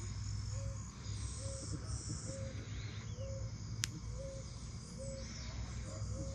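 Outdoor chorus of crickets and other insects: a steady high trill, with a short low note repeating about once a second. A single sharp click comes near the middle.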